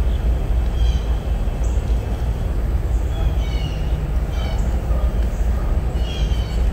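Small birds chirping, a short high call every second or so, over a steady low rumble.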